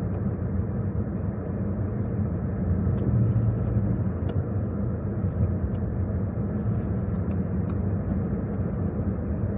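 Car on the move heard from inside the cabin: a steady low drone of engine and road noise, swelling slightly about three seconds in.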